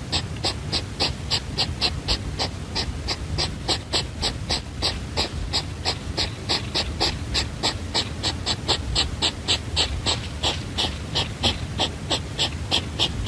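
A small animal making a rapid, even series of short, sharp sounds, about five a second, without a break.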